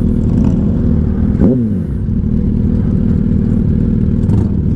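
Yamaha R1 sportbike's inline-four engine running steadily while riding, with a brief dip and rise in pitch about a second and a half in.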